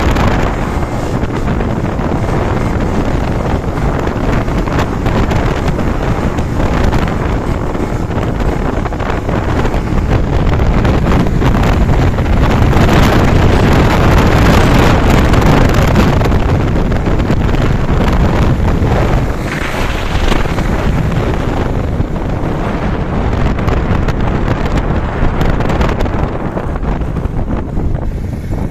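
Loud, steady wind buffeting the microphone on a moving motorcycle, with the motorcycle's engine and road noise underneath.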